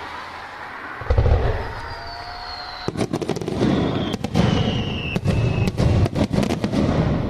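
Aerial fireworks going off: a deep boom about a second in, then a rapid volley of sharp cracks and bangs over a steady hiss, with falling whistles threading through.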